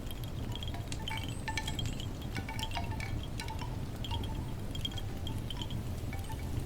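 Wind chimes tinkling in irregular clusters of short ringing notes over a steady low background rumble.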